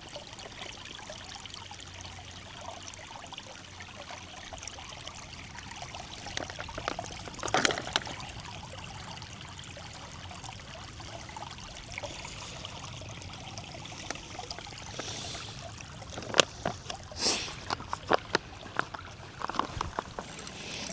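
A small stream trickling steadily. There is a louder burst about seven and a half seconds in, and a string of sharp clicks and knocks in the last few seconds.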